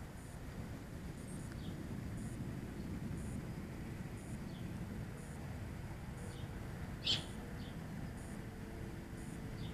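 Outdoor ambience in grass: a steady low rumble with faint, repeated small chirps. One short, louder bird chirp comes about seven seconds in.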